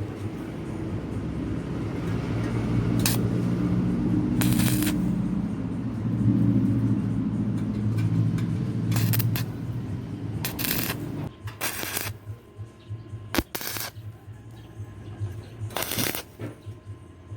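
Electric motor from a repurposed water pump running with a steady low hum that stops about 11 seconds in. Short scraping and rattling bursts of metal handling come and go throughout, several after the motor stops.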